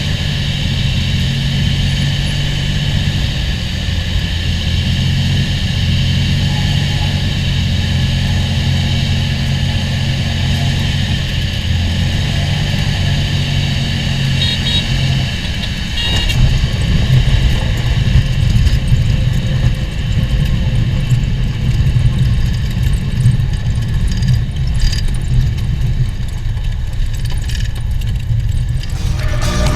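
Cessna 206 single piston engine and propeller running steadily, a constant low drone. About halfway through, the sound turns louder and rougher, with a rumbling low end.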